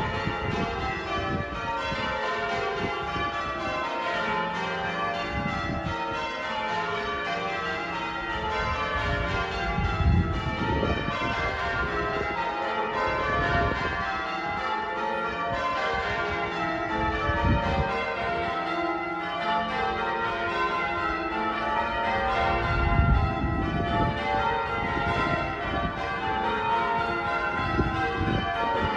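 Cathedral bells ringing: a continuous run of strikes at several pitches, each one ringing on into the next.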